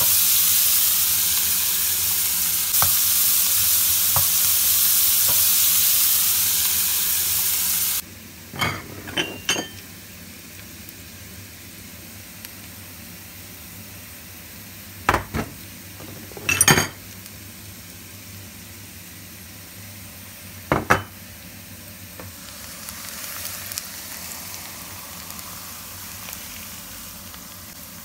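Sliced onions frying in hot oil: a loud, steady sizzle that cuts off suddenly about eight seconds in. After that comes a quieter stretch with a handful of sharp clinks and knocks of dishes and a pan against a plate.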